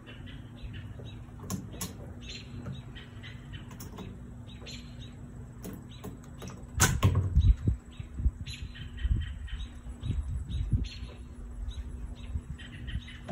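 Small birds chirping repeatedly in short calls, with bursts of low rumbling, loudest about seven seconds in.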